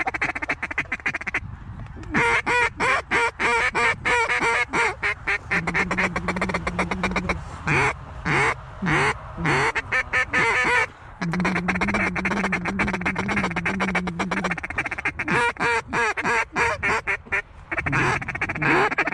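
Hunters' mallard duck calls blown hard and fast: rapid feed chatter and runs of hen quacks, with several calls going at once. A low steady note is held twice in the middle.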